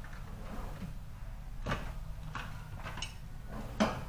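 Hand tools being picked up and handled: a few light clicks and clatters, the loudest near the end, over a steady low hum.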